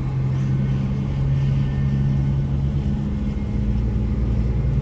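Car engine hum and road rumble heard from inside the cabin while driving. The engine note is steady and drops slightly about three seconds in.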